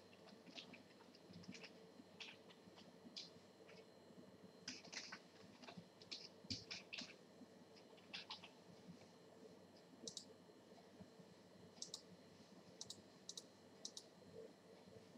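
Faint computer keyboard typing and mouse clicks. Irregular light clicks come in a cluster in the first half, then single clicks every second or two.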